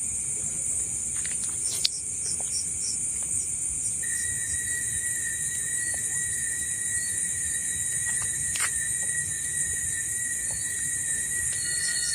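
Night chorus of crickets and other insects: a steady high-pitched trill with regular chirps. A second, lower steady insect tone comes in about a third of the way through, and a few faint clicks sound along the way.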